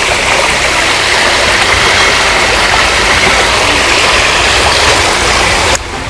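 Small garden waterfall, water running and splashing steadily down a mossy rock bank; the sound stops abruptly near the end.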